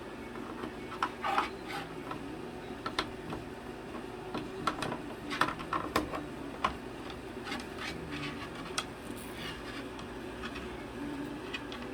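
Irregular sharp clicks and small knocks of hard objects being handled, in uneven clusters, over a steady low hum.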